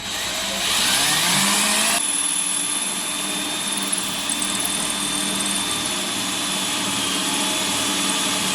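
Power drill spinning up over the first couple of seconds, then running at a steady whine while boring a hole into ceramic wall tile.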